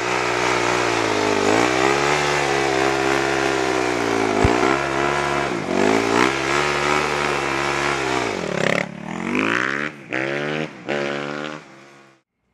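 Suzuki RM-Z250 four-stroke single-cylinder motocross engine running through its exhaust, its pitch dipping and coming back up a few times, with one sharp pop about four seconds in. After about nine seconds the sound breaks off briefly twice, then cuts off suddenly.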